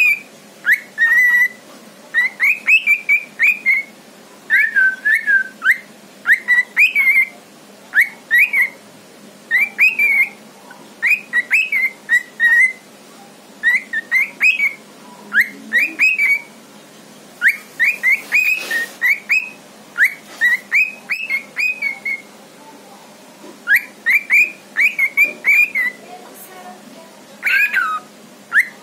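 Lutino cockatiel whistling: quick runs of short whistled notes that swoop up and down, strung into phrases, with brief pauses between the runs.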